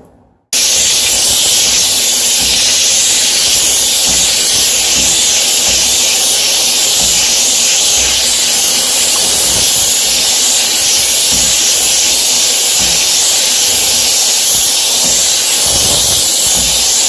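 HomeRight SteamMachine steam cleaner jetting steam through its small brush nozzle: a very loud, steady hiss that starts abruptly about half a second in.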